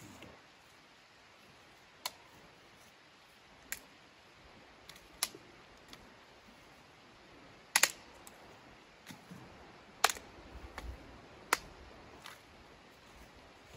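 Scattered sharp clicks and snaps, one every second or two, with the loudest about eight and ten seconds in, over a faint steady hiss. They are typical of camp gear being handled and dry twigs underfoot.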